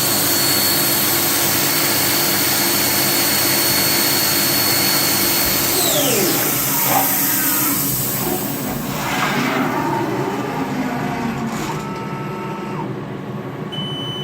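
Haas TM-2P CNC mill spindle running at high speed with a steady high whine and hiss, then spinning down about six seconds in, its pitch falling as the machining cycle ends. A sharp click comes about a second later, and the noise then fades to a lower hum.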